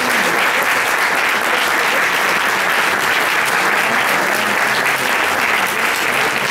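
Audience applauding steadily: many people clapping at once, a dense, even sound that keeps up throughout.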